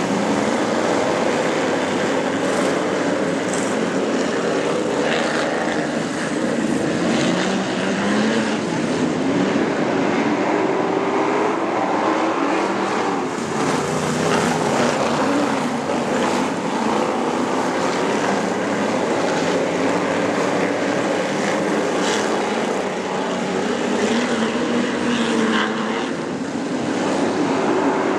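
Several supermodified race cars' V8 engines running together, their pitch rising and falling as the cars accelerate and lift around the oval.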